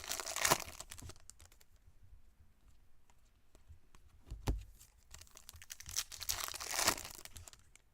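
Foil trading-card pack wrappers being torn open and crinkled, in two spells: at the start and again from about six seconds in, with small clicks of cards being handled and a soft thump between.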